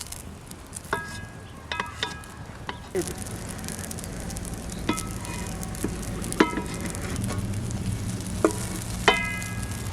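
Kebab meat sizzling on a grill over an open fire, the sizzle rising about three seconds in. Several sharp clinks that ring briefly are scattered through it, the loudest near the end.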